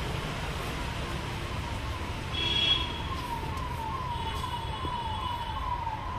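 A distant siren: a falling tone repeating about two to three times a second and growing louder, over steady outdoor background noise.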